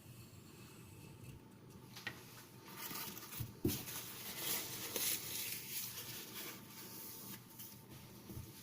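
Knife blade of CTS XHP steel drawn across a sharpening stone in light micro-bevel strokes, a faint scraping hiss, with a click about two seconds in and a couple of low knocks a little past three seconds.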